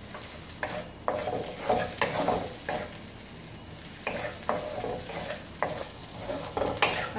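Prawns and fish cake sizzling in oil in a metal kadai while a spatula stirs them, scraping and knocking against the pan at irregular intervals of about half a second to a second, some knocks leaving a short ring from the pan.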